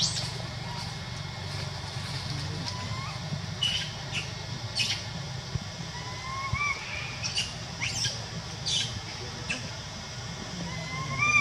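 Infant macaque giving a few short, faint rising squeaks, several seconds apart, over scattered sharp clicks and a steady low hum.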